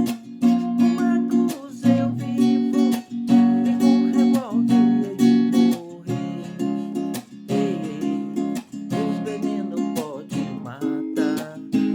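Music: acoustic guitar strumming and picking, steady throughout.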